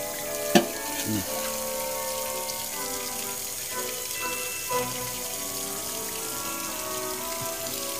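Kitchen tap running into the sink as spoons are washed, a steady hiss of water, with a sharp knock about half a second in. Music plays in the background.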